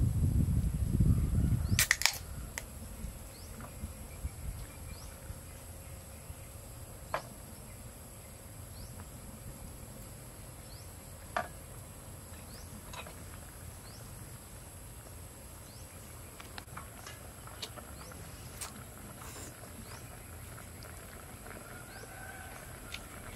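A drink can is opened with one sharp crack about two seconds in, after a couple of seconds of low rumbling handling noise. Then only scattered faint clicks over a steady faint high hum.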